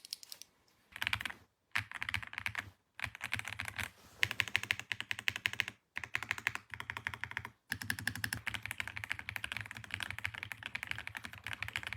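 Fast typing on a mechanical keyboard: rapid key clicks in runs of a second or two, with short pauses between them.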